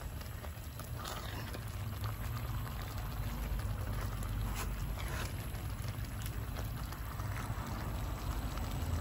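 Thick chana dal with fenugreek simmering and bubbling in a metal pan as a spoon stirs through it, with scattered soft pops and scrapes over a low steady rumble.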